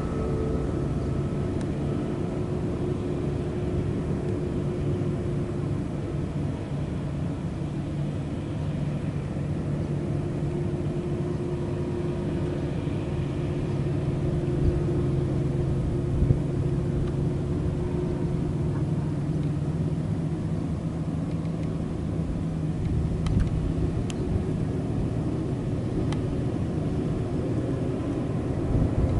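Komatsu mining haul trucks' large diesel engines running steadily under way, a low drone with a held engine note.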